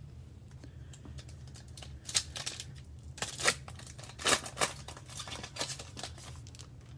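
A card pack's wrapper being torn open and crinkled, in several clusters of sharp rips and rustles, over a steady low hum.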